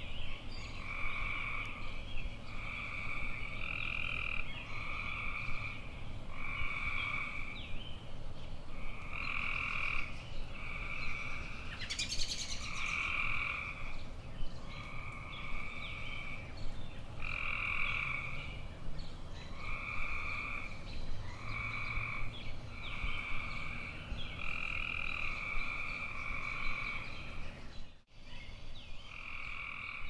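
Tree frogs calling: a steady series of short calls, each about half a second long, coming roughly once a second. A brief hiss breaks in about twelve seconds in, and the sound cuts out for a moment near the end before the calls go on.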